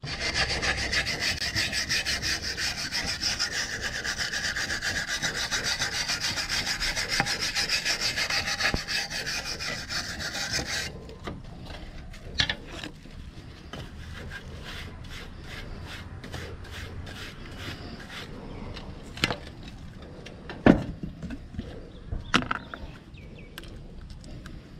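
Wire brush scrubbed hard back and forth over concrete roof tiles in rapid rasping strokes, scouring the tile surface clean, stopping abruptly about eleven seconds in. Afterwards, tools and a bucket lid are handled on the tiles, with a few sharp knocks.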